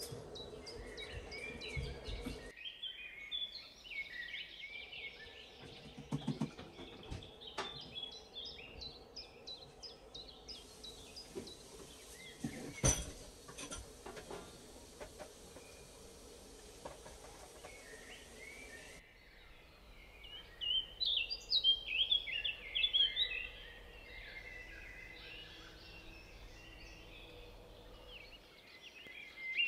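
Birds chirping and twittering throughout, with a few sharp clicks and knocks of a spatula in a nonstick pot, the loudest about thirteen seconds in.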